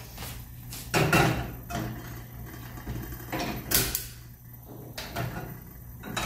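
Aluminium pots and a saucepan being moved and set down on a gas stove's grate: several separate metal knocks and clanks, the loudest about a second in and just before the four-second mark, over a steady low hum.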